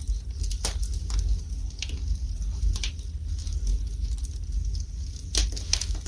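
Wood fire burning in a fireplace: scattered sharp crackles and pops, half a dozen in a few seconds, over a low steady rumble of the flames.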